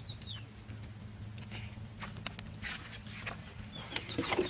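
Light clicks and rustles of close handling over a steady low hum, with a few short, high, falling bird chirps near the start and again near the end. A louder rustle comes just before the end.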